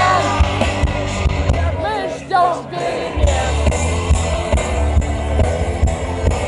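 Live rock band playing loud with electric guitar, bass and a drum kit keeping a steady beat; a few bending high notes come about two seconds in.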